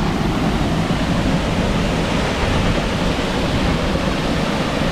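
Lowell Creek Waterfall rushing hard, a steady, loud, even noise of heavy falling water, strongest in the low range.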